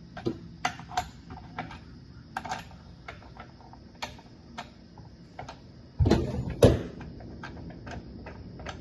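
Scattered light clicks and taps from handling the plastic covers and parts of a Stihl MS 261 C chainsaw, with a louder thump and clatter about six seconds in.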